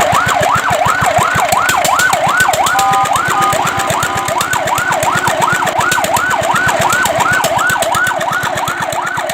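Fire truck siren in a fast warble, sweeping up and down about three times a second. About three seconds in it briefly holds steady tones before the warble resumes, and it grows a little quieter near the end.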